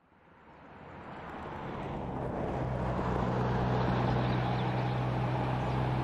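A motor vehicle running steadily, a low engine hum under broad road and wind noise, fading in from silence over the first two or three seconds.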